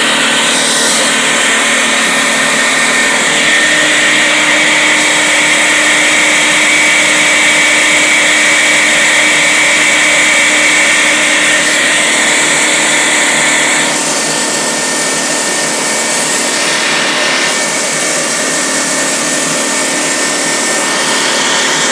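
Homemade high-pressure air compressor on a three-stage AK-150 tank compressor head, driven by a 2.5 kW three-phase electric motor, running steadily as it builds pressure toward 300 bar. It drops a little in loudness about two-thirds of the way through.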